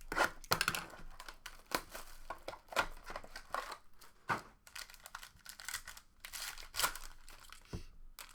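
Trading-card packaging being torn open and crinkled by hand: a run of irregular crackling, rustling tears.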